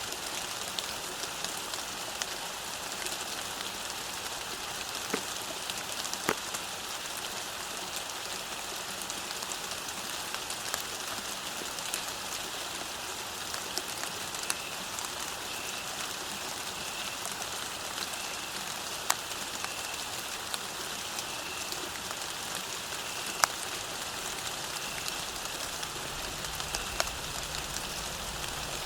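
Steady rain falling on a road, a constant hiss with scattered louder drips and drop impacts close by. From about halfway a faint short high note repeats roughly once a second, and a low rumble comes in near the end.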